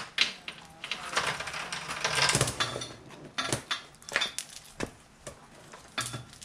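Metal drive chain being pulled off a motorcycle's rear sprocket and gathered up: loose links rattling and clinking in a string of sharp clicks, densest about two seconds in. The old chain is coming off to be replaced.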